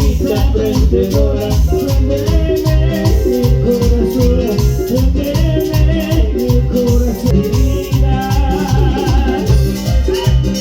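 Live band playing an upbeat Latin dance tune, an instrumental passage with no singing, over a steady bass beat.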